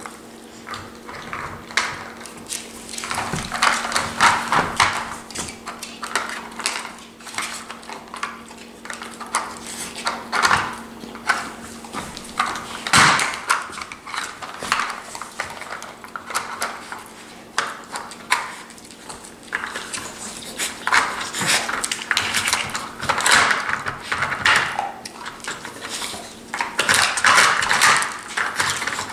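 Plastic dog puzzle toy clacking and rattling irregularly as two bull terriers nose and paw at its sliding covers and lift-out bone pieces, with the dogs sniffing at it. The loudest single knock is about halfway through.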